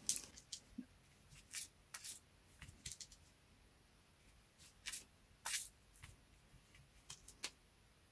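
Faint, irregular small clicks and rustles of a beading needle picking up seed beads and beads and sliding them onto fishing line.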